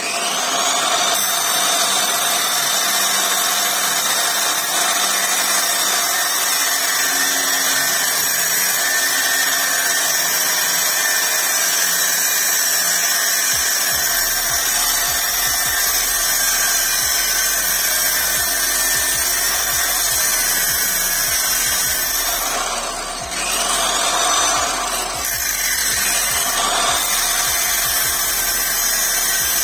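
Angle grinder mounted in a chop-saw stand, its cut-off disc spinning up and then running with a steady high whine as it grinds through a steel rebar rod. Twice, about three quarters of the way through, the pitch sags briefly and recovers as the disc loads in the cut.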